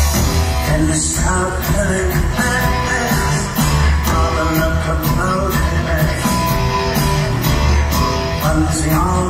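A rock band playing live: drums keeping a driving, even beat under a heavy bass line, electric guitar and keyboards.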